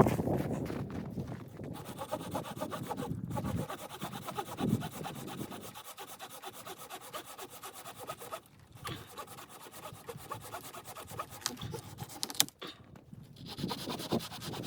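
Saw cutting through wood with fast, rasping strokes, pausing briefly three times.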